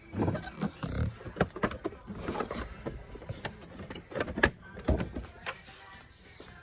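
Irregular knocks and clicks, as of a vacuum cleaner being handled, with no steady motor hum.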